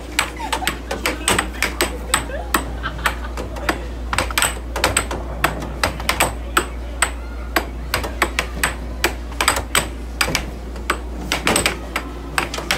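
Air hockey puck and mallets clacking in a fast rally, sharp irregular knocks about two to four a second as the puck is struck and bounces off the table rails, over a steady low hum.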